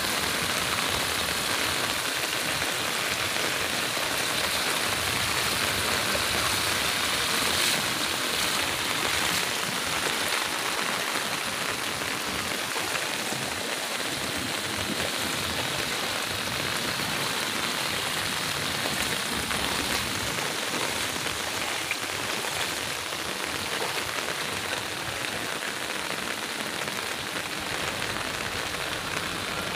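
Heavy rain pouring steadily onto flooded ground and standing water, a constant even hiss.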